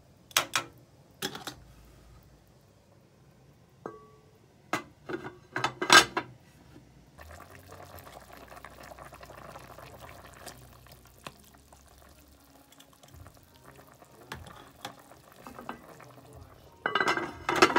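A metal spoon clinking and scraping against an enamelled pot as chicken in gravy is stirred: scattered knocks, with a louder cluster near the end. In between comes a few seconds of steady hiss from the simmering pot.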